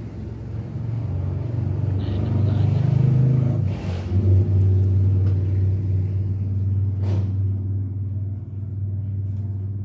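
A motor vehicle engine running with a low, steady rumble that grows louder about four seconds in and then holds steady.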